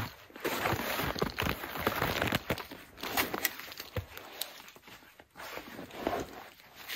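Footsteps crunching and shuffling in snow, irregular steps with the rustle of clothing and gear.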